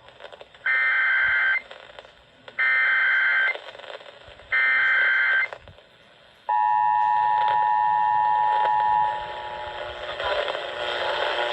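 Emergency Alert System tones over the radio: three one-second bursts of the SAME header's warbling digital data tones, then the steady two-tone attention signal for about two and a half seconds. Together they mark the start of a relayed tornado warning alert.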